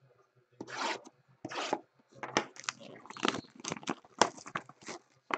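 Baseball card pack wrappers being torn open and crinkled by hand: two short tearing swishes about a second in, then a run of crinkles and crackles.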